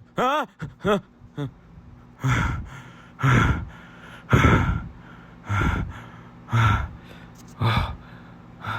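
A person's short voiced gasp, then six heavy sighing breaths about a second apart, over a faint low steady hum.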